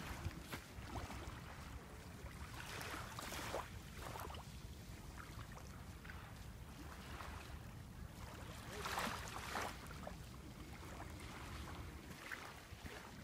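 Small waves lapping and washing on a sandy shore, with wind buffeting the microphone; a few louder washes come about three seconds in and again about nine seconds in.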